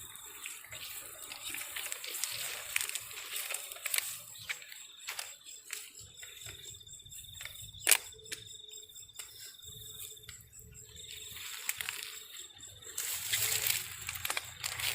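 An insect trilling on one high, steady note, stopping and starting a few times, over rustling background noise. A single sharp click sounds about eight seconds in.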